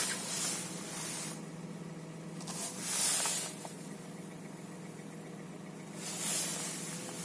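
Hyundai Solaris 1.4-litre four-cylinder engine idling with a steady hum, while its hydraulic power steering pump hisses under strain several times as the steering is loaded. The power steering load makes the engine's idle knock quieter.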